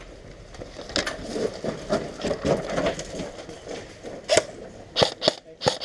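Airsoft guns firing a scattered series of sharp single shots over rustling movement, with several cracks in quick succession near the end.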